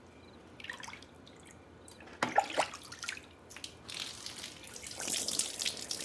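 Water splashing and sloshing in a plastic basin as a hand stirs it and a steel pot is dipped, with a few drips at first; about five seconds in, a louder, steady pour of water from the pot over a person's head and back into the basin.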